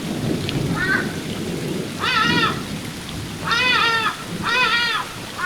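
Ibis calling four times, each call rising and then falling in pitch, the first short and the later ones longer and louder, over the steady low rush of a waterfall.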